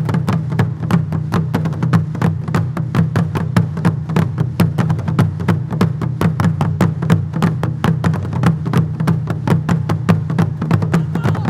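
Korean traditional percussion ensemble of janggu hourglass drums and large buk barrel drums beaten with sticks, a fast, driving drumbeat of rapid strokes over a heavy low boom. It runs at full force and the strokes stop near the end, leaving the drums ringing away.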